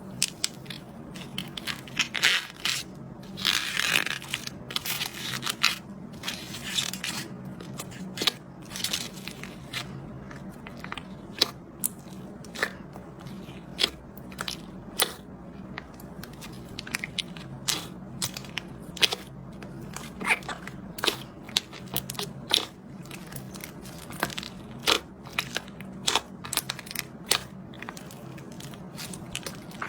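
Slime being squeezed and stretched, its trapped air bubbles popping with sharp clicks. Dense crackling stretches in the first several seconds give way to separate pops about every half second to a second.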